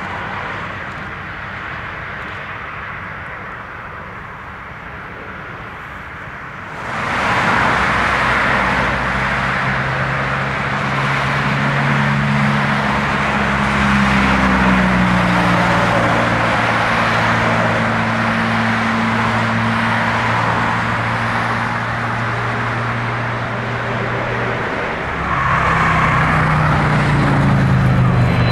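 Boeing KC-135R Stratotanker's CFM56 turbofan engines, a continuous jet noise with steady low tones that jumps up sharply about seven seconds in and rises again near the end.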